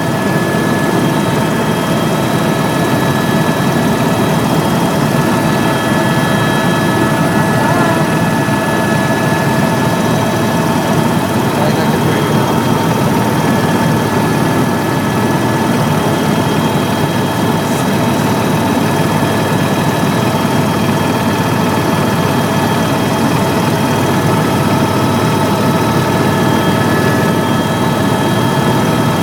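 Helicopter in flight heard from inside the cabin: a loud, steady drone of engine and rotor with several constant whining tones over it.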